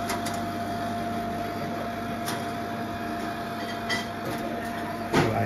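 Buffet bread toaster running with a steady electric hum, with a few light clicks and a sharper knock near the end.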